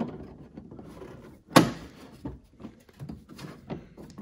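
Hands pushing and prying at the recessed plastic top panel of a Sony projector: small taps and clicks, with one sharp click about one and a half seconds in.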